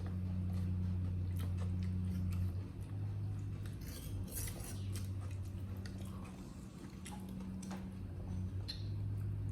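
Monkeys eating from a plate: scattered small clicks and taps of food and dish being handled, over a steady low hum that drops out a few times.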